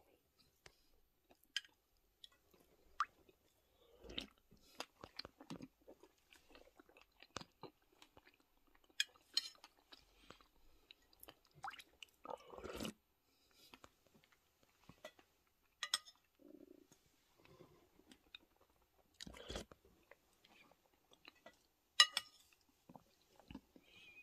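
Quiet, close chewing of a dense seed vitamin mixture, soft and irregular. It is broken by a handful of sharp clinks of tableware, the loudest near the end.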